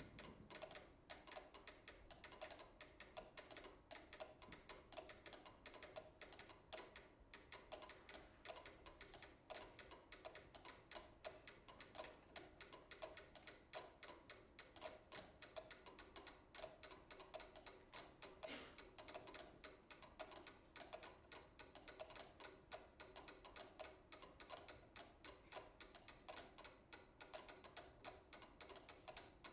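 Mechanical pyramid metronomes set to different tempos, ticking together in a dense, overlapping pattern of clicks that keeps shifting against itself.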